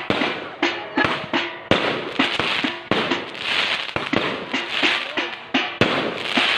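Fireworks going off in rapid succession: sharp bangs about two or three a second, with crackling between them.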